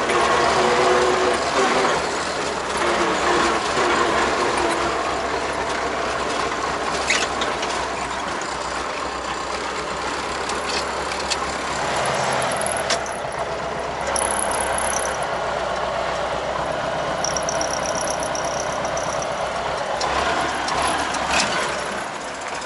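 Tractor diesel engine running steadily, with the rattle and clatter of the machinery. A thin high squeal comes and goes in the second half.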